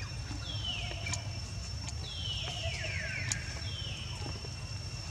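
Baby monkey squealing: three high-pitched calls that each fall in pitch, the middle one longer and broken into several overlapping falls, over a steady low rumble.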